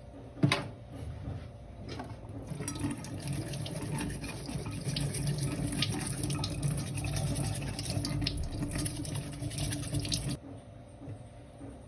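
Water running from a tap with small splashes, starting a couple of seconds in and cutting off suddenly about ten seconds in, after a single sharp click near the start.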